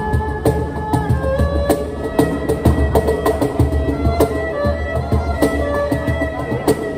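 Improvised duet of erhu and cajon. The erhu plays a bowed melody of held notes over a steady cajon beat of deep bass thumps and sharper slaps.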